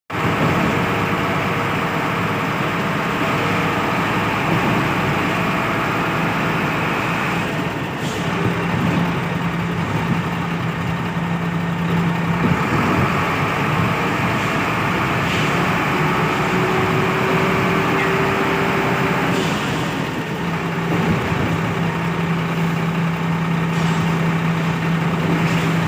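Concrete pump truck running: steady engine noise with a low hum that comes in and drops out twice, and a few faint knocks several seconds apart.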